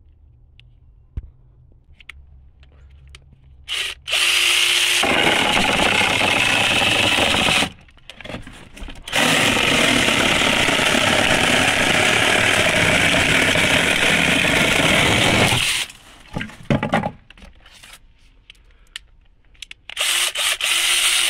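DINSHARE 4-inch 20V cordless mini chainsaw cutting into a wooden board. It runs in two long stretches, the first about four seconds in and the second, longer one a couple of seconds later, then gives one short burst near the end.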